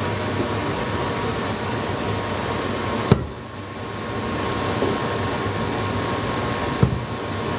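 Steady background hum, with two sharp knocks about three and seven seconds in as a stainless steel mixing bowl and a spatula are worked over a metal cake pan while vanilla cake batter is scraped out.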